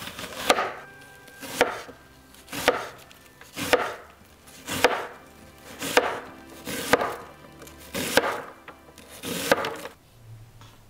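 A chef's knife slicing through half an onion on a cutting board: nine slow, evenly spaced cuts, about one a second, each a short crunch ending on the board. The cutting stops near the end.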